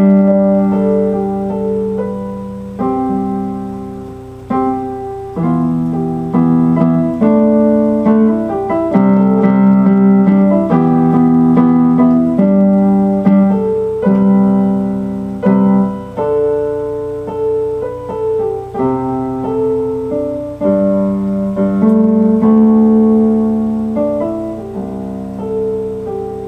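Keyboard music: a piano sound playing an instrumental piece in chords, with the chords changing every second or two and each one struck and left to fade.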